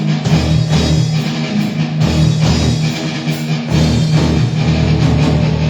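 Rock band playing live: loud electric guitar over a drum kit, with held low notes and steady drum hits.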